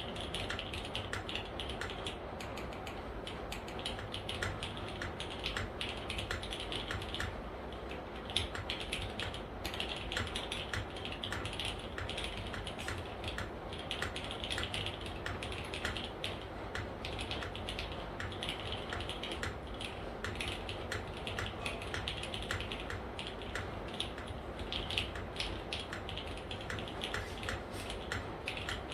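Continuous typing on a Smith + Rune Iron180 mechanical keyboard with lubed and filmed vintage black linear switches, GMK keycaps, a half polycarbonate plate and a brass bottom: a steady stream of keystrokes with a few louder single hits.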